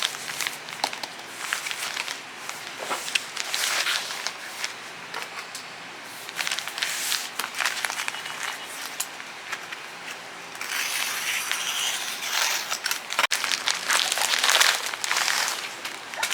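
Crinkling and rustling of handled material, with many scattered small clicks and louder stretches of crackling.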